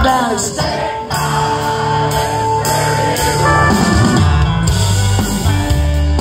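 Live country-rock band playing: drum kit, electric guitars and bass, with a burst of drum hits at the start and then a high note held for a couple of seconds over a moving bass line.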